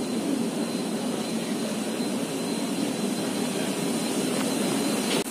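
Steady jet aircraft noise on an airport apron, a low rumble with a thin high whistle over it, heard muffled through the glass of a jet bridge.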